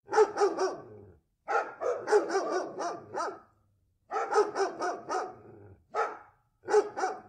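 A dog barking in quick runs of short barks: three, then a longer run of seven or eight, then about five, then a single bark and two more near the end, with short silent gaps between the runs.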